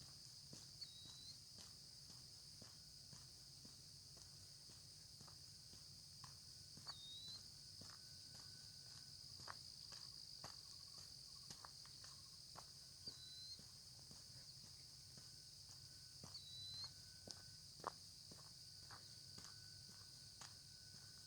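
Faint, steady high-pitched insect chorus, with a short high chirp recurring every few seconds. Scattered light crunching steps on the lane sound under it.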